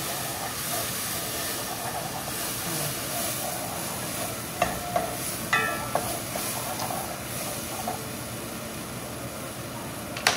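Steady hiss of onions and tomato sizzling in oil in a covered pot on the stove. A few clinks and knocks of cookware come about halfway through, one of them ringing briefly, and a single sharp click near the end.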